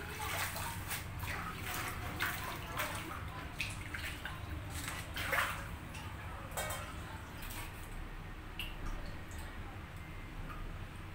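Water splashing and dripping in irregular bursts, busy at first and thinning out after about six seconds.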